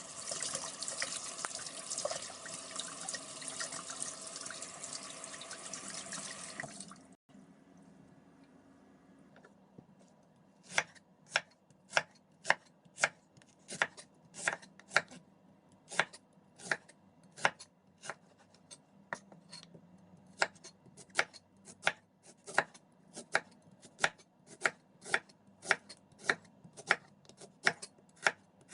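Tap water running, cutting off suddenly about seven seconds in; after a short pause a kitchen knife chops steadily on a cutting board, about two strokes a second, cutting up ingredients small.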